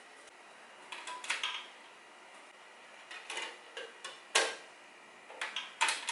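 Plastic clicks and clacks of a CD being handled and loaded: a jewel case being opened and a portable CD boombox's top lid snapping open and shut. There are several sharp clicks, the loudest about two-thirds of the way in.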